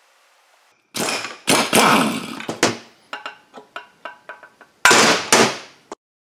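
Metal clanking and clatter from handling chainsaw crankcase parts and tools: several loud bursts, then a run of lighter clicks and knocks, then two more loud bursts. It cuts off abruptly near the end.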